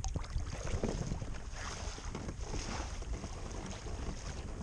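Wind buffeting the microphone over water splashing and lapping around a kayak.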